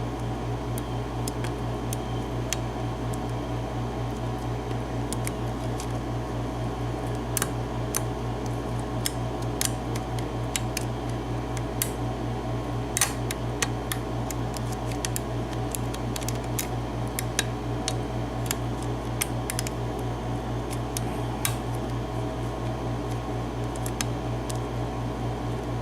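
Lock pick and tension wrench working the pins of a 5-pin euro cylinder lock: scattered small sharp clicks and scrapes, over a steady low hum.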